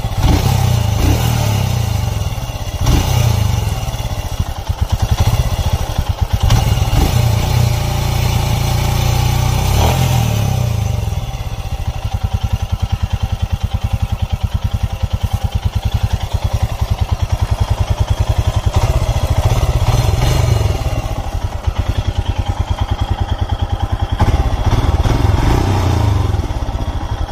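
Royal Enfield Himalayan's air-cooled single-cylinder engine running, with a ticking 'kit kit kit' from the valve tappets over the firing beat. The speed varies a little in the first ten seconds or so, then the engine settles to a steady idle. The tick is the sign of tappet clearance gone out of adjustment, a problem the mechanic calls common on this bike.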